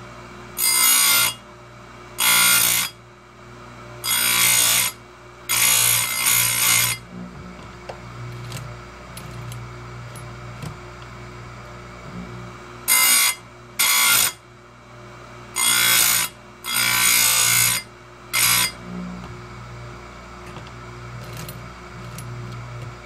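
Oregon 410-120 bench chain grinder sharpening the cutters of a 3/8 chainsaw chain: the running wheel is brought down onto one tooth after another in about ten short, loud grinding bursts, each half a second to a second long. They come in two groups split by a pause of about six seconds, with the motor's steady hum between and faint clicks in the pause.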